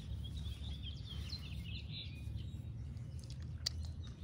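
Steady low outdoor background rumble, with a small bird chirping a quick run of high notes during the first two seconds and a single light click near the end.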